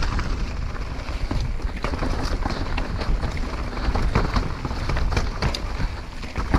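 Mountain bike descending a natural dirt singletrack: wind buffeting the helmet camera's microphone, tyres rolling over dirt and rock, and frequent knocks and rattles from the bike over bumps.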